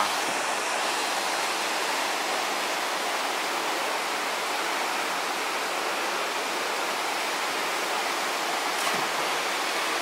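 Waterfall rushing steadily, white water sliding down a sloping rock chute into a pool.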